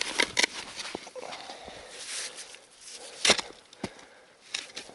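Spade digging into snowy ground after a metal-detector signal: a few sharp chopping strikes with scraping between them, the loudest about three seconds in.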